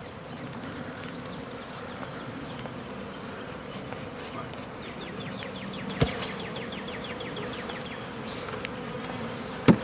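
Honey bees buzzing steadily in a dense swarm as a nuc box of bees is shaken out into a hive, the bees stirred up and agitated. A sharp knock about six seconds in and another near the end, as the wooden nuc box is rapped to drop the bees out.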